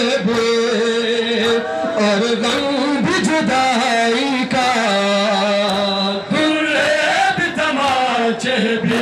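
A male voice chanting a noha, a Shia mourning lament, in long held, wavering melodic lines.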